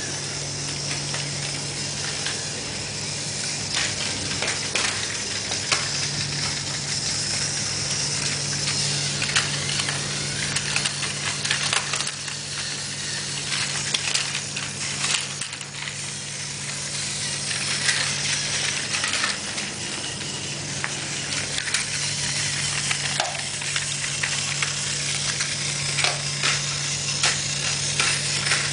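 Battery-powered Thomas toy trains running on plastic track: a steady motor hum that stops and restarts a few times, with a hiss and many small clicks and clatters from the wheels on the track and from pieces being handled.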